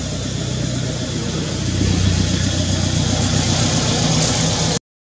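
An engine running steadily, a low hum that grows louder about two seconds in. The sound cuts out to silence for a moment near the end.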